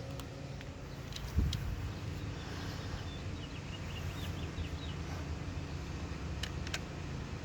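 Steady low rumble of outdoor background, like distant traffic, with a thump about a second and a half in and a few light clicks near the end, typical of handling a cordless jigsaw as its battery is taken off. A faint bird trill comes in the middle.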